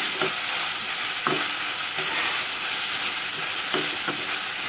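Sliced onions and green chillies sizzling in oil in a stainless-steel kadai, stirred with a steel spoon that scrapes and clinks against the pan several times, some strikes ringing briefly.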